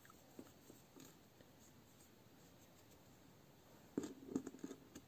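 Near silence with faint ticks of a crochet hook working yarn, then about four seconds in a brief cluster of soft rustles and knocks as hands and sleeve move over the crocheted pieces.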